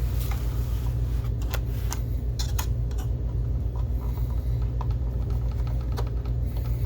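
Scattered small clicks and taps of a screwdriver backing coarse-thread plastic screws out of a DLP projector's colour wheel assembly, over a steady low hum.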